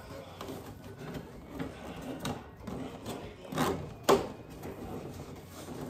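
Plastic seed-starting tray and its cover being handled and fitted, a run of light rustling and clacking with two sharper plastic knocks about half a second apart, a little past the middle.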